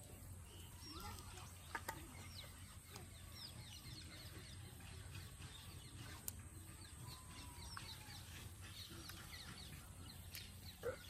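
Faint bird calls: many short, high, falling chirps, with a few sharp clicks and a steady low hum underneath.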